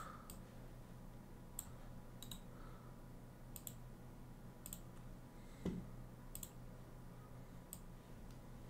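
Faint, scattered clicks of a computer keyboard and mouse, some in quick pairs, while a web search is made. A soft knock a little past halfway.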